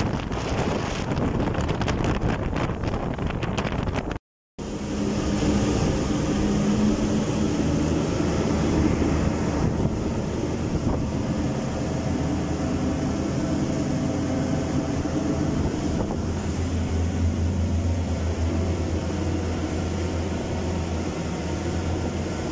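Motorboat under way: wind buffeting the microphone over water rushing past the hull. After a brief dropout about four seconds in, the boat's engine runs with a steady low hum.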